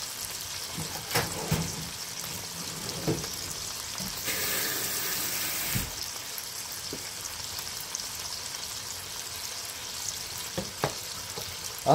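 Chicken thigh frying in oil in a frying pan: a steady sizzle with scattered crackles and pops. The hiss grows louder for about a second and a half in the middle.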